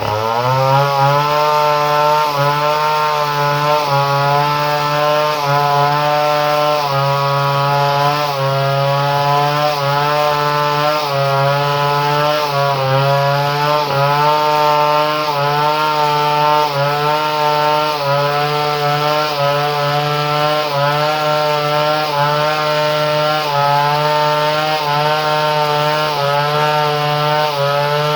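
Two-stroke chainsaw engine with a modified ignition, running at high revs. Its pitch dips sharply right at the start, climbs back, then wavers up and down about once a second.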